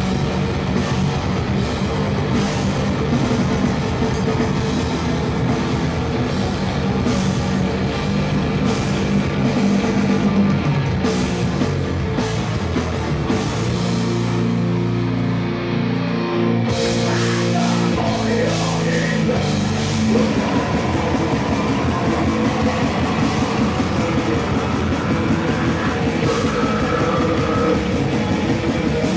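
Live heavy metal band playing loud: distorted electric guitars, bass guitar and drum kit. About halfway through, the cymbals drop away for a few seconds while low chords ring out, then the full band comes back in.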